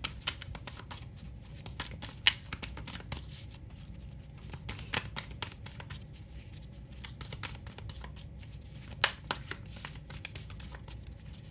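Tarot cards handled and shuffled by hand: a run of light irregular clicks and snaps, with two sharper snaps about two seconds in and about nine seconds in, over a steady low room rumble.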